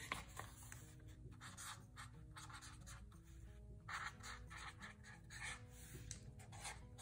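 Mildliner marker scratching over notebook paper in short strokes as a word is written, faint, with soft background music underneath.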